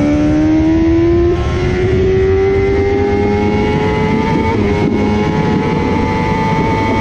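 Kawasaki ZXR400's four-cylinder 400 cc engine running at high revs under acceleration, its pitch climbing slowly and steadily, over a constant rush of wind noise.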